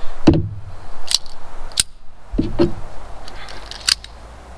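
A handful of separate sharp metallic clicks and clacks from a Llama XV .22 LR pistol's slide and magazine being worked by hand to clear a stovepipe jam.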